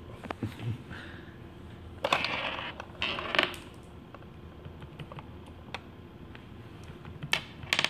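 Scattered clicks and taps of a laptop's keyboard and touchpad being worked, with two brief rustling scrapes about two and three seconds in and a quick run of clicks near the end.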